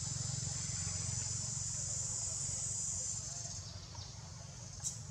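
A high, steady insect chorus that fades out about three and a half seconds in, over a low steady rumble, with one sharp click near the end.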